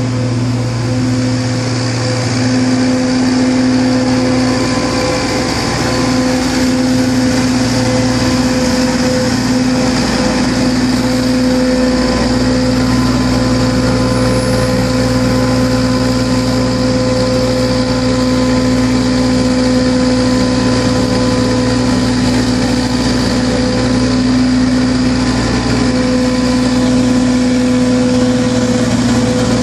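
Truck-mounted street sweeper at work, its engine and sweeping gear running with a steady droning hum.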